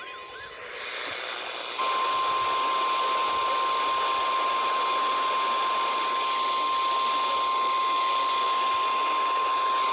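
NOAA Weather Radio's 1050 Hz warning alarm tone, sounded as part of the weekly National Weather Service test: one steady, unbroken tone that starts about two seconds in and holds. It sits over the receiver's steady static hiss.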